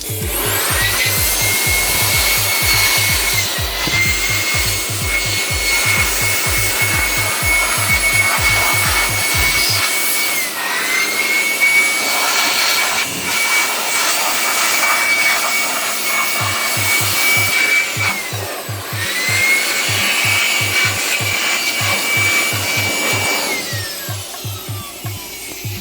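A small electric motor whines at a high, steady pitch. It spins up just after the start, sags and recovers three times as if briefly loaded, and winds down near the end as it is switched off. Background music with a steady beat plays under it, dropping out for several seconds in the middle.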